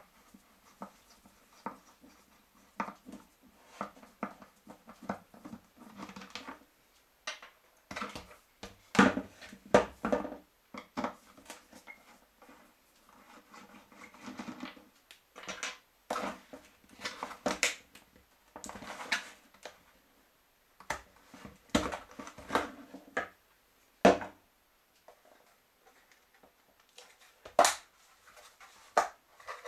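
Hand-tool work on a baby stroller wheel: a screwdriver turning in the plastic hub, and irregular clicks, scrapes and knocks of plastic parts being handled as the wheel is taken apart. A few sharper knocks stand out.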